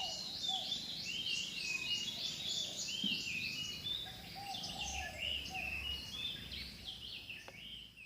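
Many chicks peeping together, a dense run of quick, high chirps, one after another, with a few lower calls now and then.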